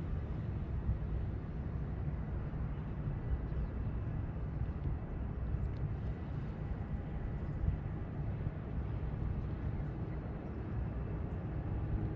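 Steady low outdoor rumble, with a faint thin hum above it.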